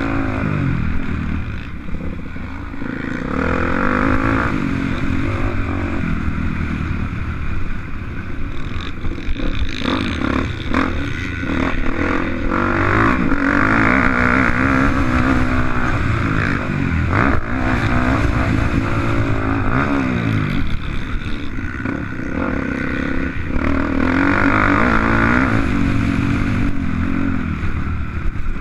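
Dirt bike engine revving hard, its pitch climbing and dropping again and again as the rider shifts and rolls off the throttle, with a few sharp knocks about a third of the way in.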